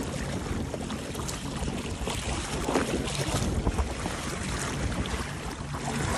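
Choppy seawater sloshing and splashing against the side of a fishing jet ski's hull as a sailfish is held alongside, with wind buffeting the microphone. The idling engine hums low and steady underneath.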